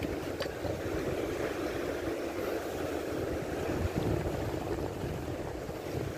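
Steady rush of wind on the microphone over sea surf breaking on a reef, with a fluttering low rumble.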